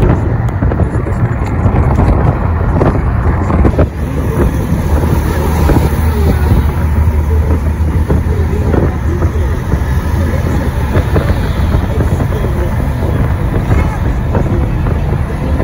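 Steady low rumble of a moving vehicle's engine and road noise, with indistinct voices faintly beneath it.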